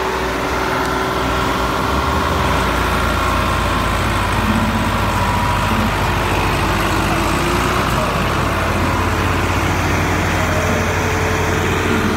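Two Millat Massey Ferguson tractors' diesel engines running hard together under load in a head-to-head power contest: a steady low drone that grows louder about two seconds in.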